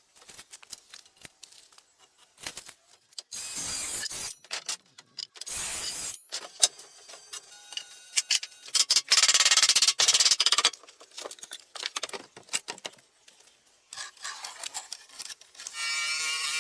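Handling noise: irregular clicks and knocks with several bursts of scraping or rubbing, the loudest about nine to eleven seconds in.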